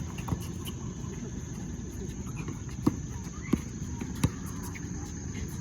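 Basketball play on an outdoor court: three sharp, evenly spaced knocks in the middle, like a ball being dribbled, over a low murmur of the game. A steady high insect chirr runs underneath.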